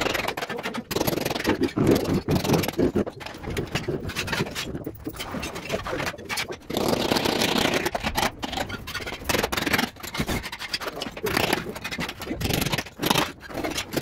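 Trowel scraping and spreading cement mortar over a concrete floor in uneven strokes.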